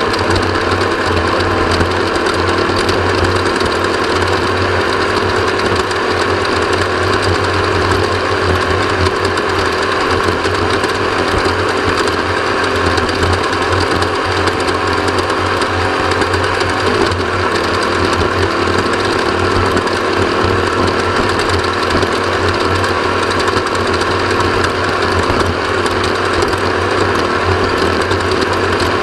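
Off-road race vehicle running hard at a steady high load, its engine and a constant mechanical rattle heard together with no break.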